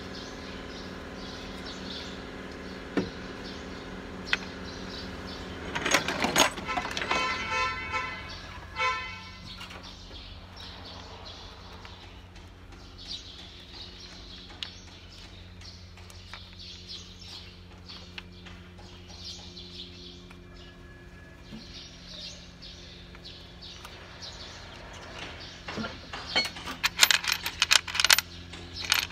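Light metallic clinks and rattles of hand tools and parts on the Nissan GE13 diesel engine's open cylinder head during injector removal, with a quick cluster of clinks near the end, over a steady low background hum.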